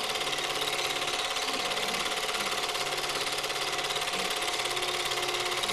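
Super-8 film projector running: a fast, even mechanical clatter with a steady whine, heard through the film's soundtrack.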